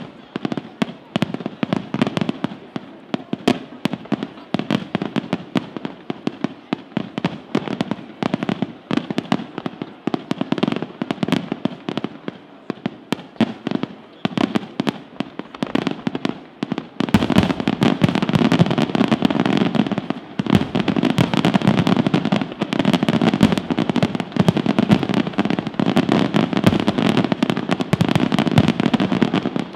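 Aerial fireworks shells bursting in a rapid, continuous series of sharp reports and crackles. About seventeen seconds in, they build into a louder, denser barrage.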